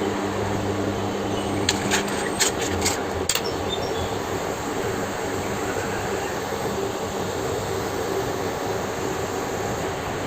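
A steady rushing hiss, with a low hum that fades out about three seconds in. A quick run of sharp clicks comes about two to three seconds in.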